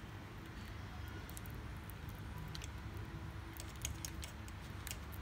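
Faint scattered clicks and rustles of fingers working a stripped wire end into a small plastic terminal connector on a perforated plastic board, over a low steady background hum.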